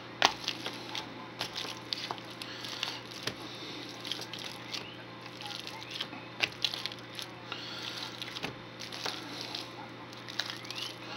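Potato masher squishing boiled potatoes in a plastic bowl, with irregular clicks and knocks as the masher strikes the bowl.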